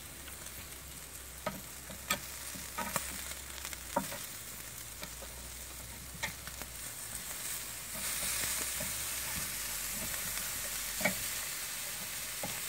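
Marinated beef short ribs (kalbi) sizzling on a kamado grill grate over lump charcoal: a steady hiss with a few sharp clicks scattered through it. The sizzle grows louder about two-thirds of the way through.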